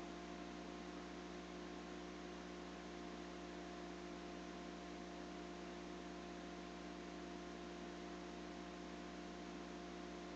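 Steady electrical hum of several held tones over a constant hiss.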